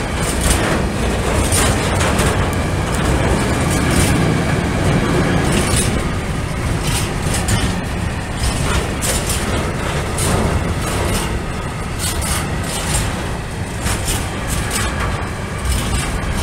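Freight train of open-top coal wagons rolling past close by: a steady rumble of wheels on the rails, with frequent short high-pitched clicks and squeaks from the running gear.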